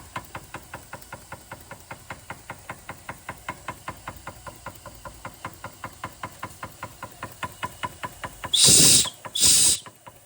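Small Bing toy live-steam engine running steadily, its beat a quick, even ticking of about five a second. Near the end come two short, loud bursts of hissing.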